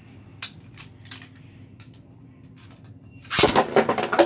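Spinning Beyblade tops in a plastic stadium: faint scattered ticks at first, then from about three seconds in a loud, rapid clatter as the tops collide and knock against each other.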